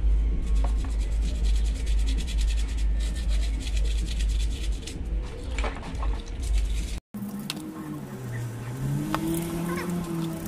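Toothbrush scrubbing motorcycle brake master cylinder parts in a basin of soapy water: quick scratchy bristle strokes with splashing, over a heavy low rumble. After a short break about seven seconds in, the scrubbing goes on with a low tone rising and falling behind it.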